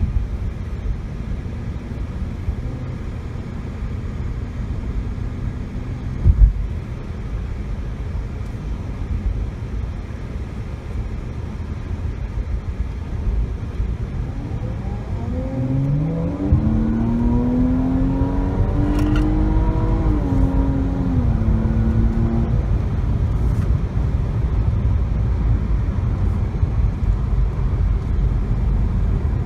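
Jaguar XE S's supercharged 3.0-litre V6 pulling under acceleration about halfway through, its note rising steadily for several seconds and then dropping at a gear change, over a steady low road and tyre rumble. A single sharp thump comes early, about a fifth of the way in.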